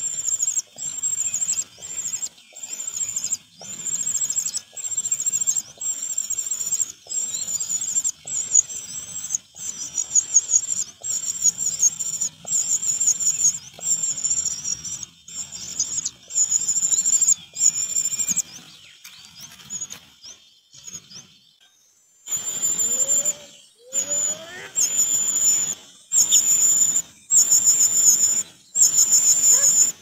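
Cuckoo chick begging: a high-pitched, quivering call repeated about once a second, stopping for a couple of seconds about two-thirds of the way through before starting again.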